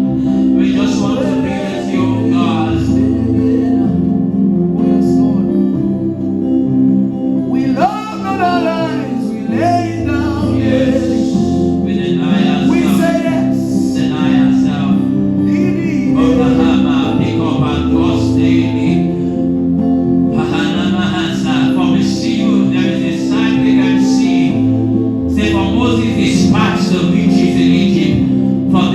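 Gospel worship music: a man singing over a backing of sustained chords and a bass line.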